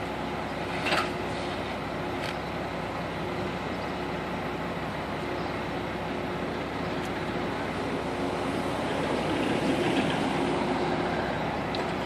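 Concrete mixer truck running steadily at a driveway pour, a constant engine hum under a noisy rumble that swells a little near the end. Two light clicks come about one and two seconds in.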